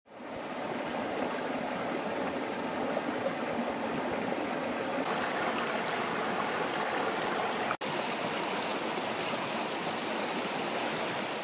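River water flowing steadily over stones. It fades in at the start and drops out for an instant about eight seconds in.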